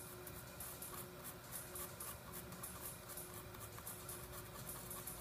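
Small stiff-bristled plastic brush scrubbing a tiny phone side-button switch held in tweezers, a quick irregular run of faint, dry bristle scratches.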